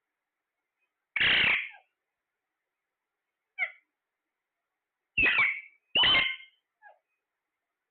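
Parrot giving loud, harsh calls: one about a second in, a short one midway, then two loud calls in quick succession and a faint chirp near the end.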